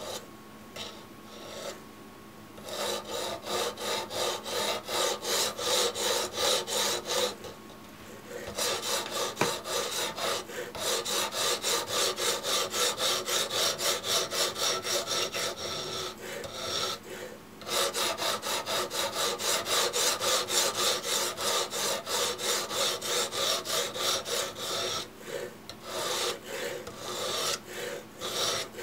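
Sharpening stone on a guided knife-sharpening rig rasping back and forth along a knife blade in quick, even strokes, about three a second. The strokes come in long runs with two short pauses and grow irregular near the end.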